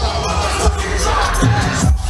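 Loud electronic dance music with heavy bass, with a crowd cheering and shouting over it.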